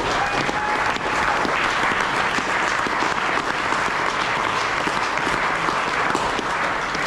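Audience applauding steadily, a dense crowd of hands clapping.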